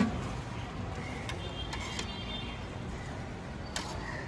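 A steel serving spoon clinking a few times against a steel chutney cup and pot, the sharpest clink at the start and fainter ones later, over a steady low background hum.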